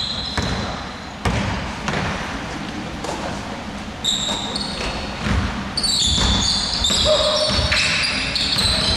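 A basketball bouncing on a hardwood court, with short high sneaker squeaks on the floor as players cut and stop, most of them in the second half.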